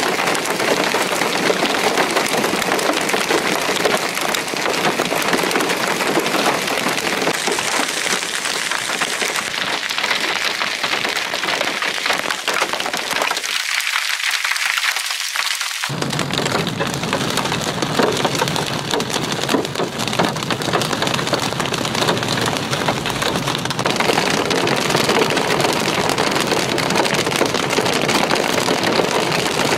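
Hail and heavy rain pelting the pavement, a dense, steady patter of small impacts. About halfway through it gives way to rain and hail hitting a vehicle driving through the storm, with a low road rumble underneath.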